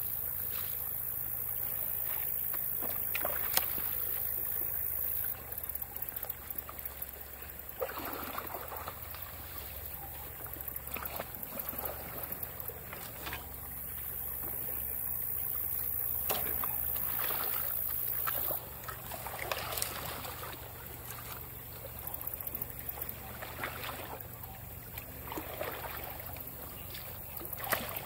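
Rake dragging sticks and mud out of a beaver-clogged drain pipe in shallow water: repeated splashes and scrapes every second or few, over a steady wash of trickling water.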